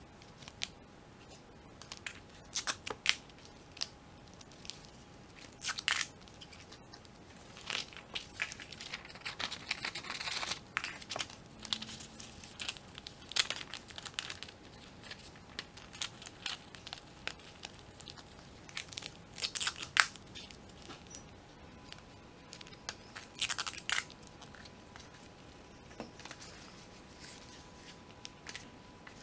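Paper rustling and crinkling in irregular short bursts as rolled paper tubes are slid into one another and a paper sheet is wrapped around them.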